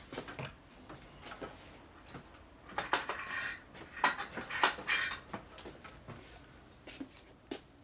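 Metal hand tools clinking and clattering as they are rummaged through, with scattered sharp clicks that are busiest from about three to five seconds in.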